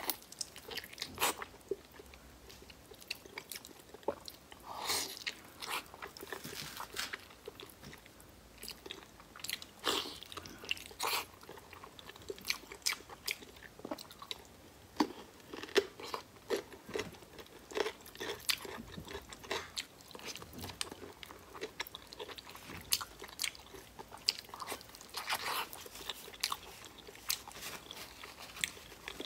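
Close-miked eating sounds: a person biting and chewing braised beef knuckle meat off the bone, with irregular sharp crunches and smacks throughout.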